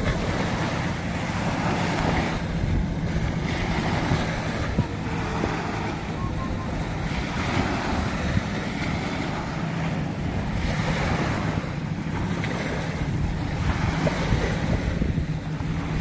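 Small waves breaking and washing up on a sandy beach, surging and falling back every few seconds, with wind buffeting the microphone.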